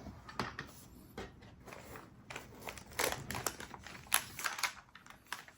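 Unpacking a keyboard from its case: scattered light clicks and knocks with paper wrapping rustling, busiest from about three seconds in.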